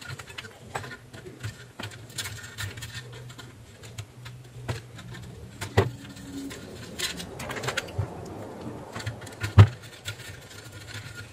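Small clicks and rustles of wires and plastic connectors being handled on a welding machine's potentiometer and LED wiring, with a sharper click near the end, over a low steady hum.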